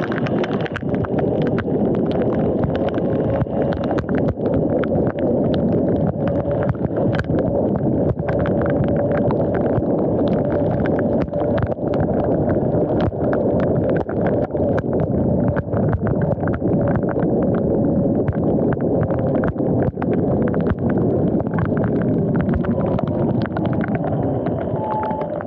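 Electric dirt bike riding on a wet road: its motor whine runs under a steady rush of tyre and wind noise, with many small clicks scattered through it. Near the end the whine drops in pitch as the bike slows.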